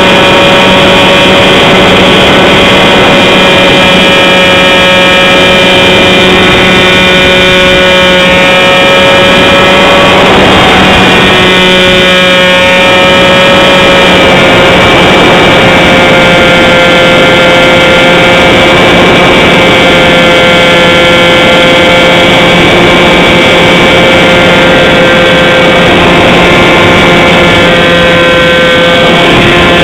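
Motor and propeller of a Dragonfly RC model plane heard from its own wing-mounted camera in flight: a loud, steady multi-toned drone with wind rush. The pitch wavers and shifts briefly about ten seconds in and again near the end.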